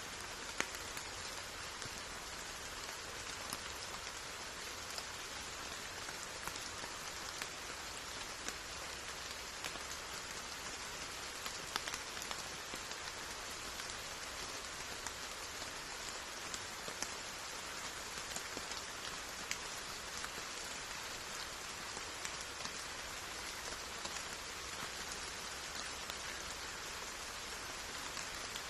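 Steady rain falling, an even hiss with scattered drops ticking sharply on surfaces.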